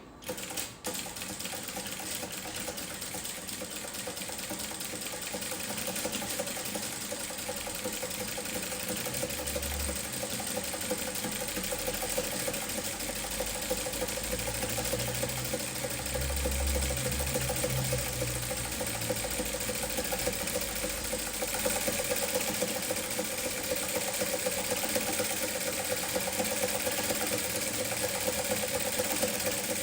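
Industrial straight-stitch sewing machine with a zigzag attachment running continuously while sewing a zigzag stitch: a rapid, even needle clatter over a steady hum, getting slightly louder over the first few seconds.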